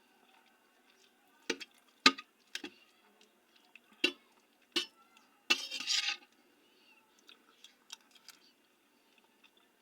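An eating utensil clinking against a dish about five times while eating rice, peas and carrots, followed by a longer, noisier scraping stretch a little past halfway.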